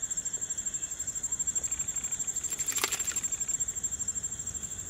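Crickets chirping, a steady, rapidly pulsing high trill. There is one short sharp sound about three seconds in.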